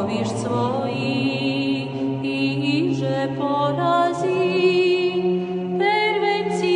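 Serbian Orthodox chant: a woman's voice sings a slow, ornamented melody over a choir holding a steady low drone (ison), which moves to a new pitch about four seconds in.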